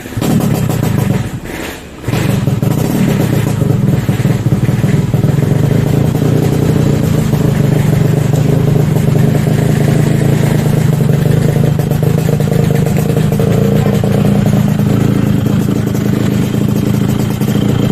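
Yamaha RX-King's 135 cc single-cylinder two-stroke engine starting up, dipping briefly about two seconds in, then running steadily. Freshly rebuilt with a new connecting rod and piston, it runs smooth.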